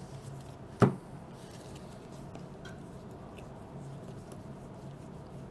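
One sharp tap on the tabletop about a second in, with a few faint small clicks of cards and pieces being handled over a low steady room hum.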